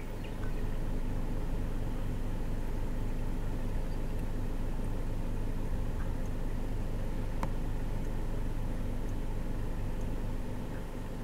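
A car engine idling steadily, a little louder from about half a second in until near the end, with one sharp click partway through.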